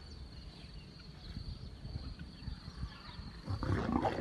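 Faint outdoor background with a steady high insect trill. About three and a half seconds in, a big cat starts to growl loudly.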